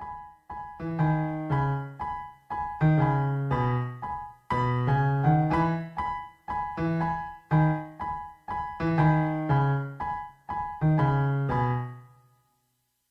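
Background piano music: notes and chords struck about twice a second, each ringing and dying away, stopping about a second before the end.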